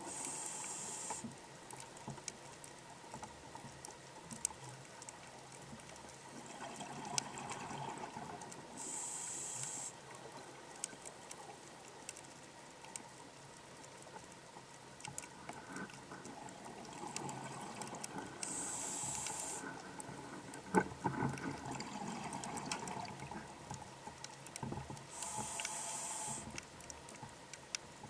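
Scuba diver breathing through a regulator underwater: a short hissing inhale four times, about every nine seconds, with softer bubbling exhales between them, and scattered faint clicks throughout.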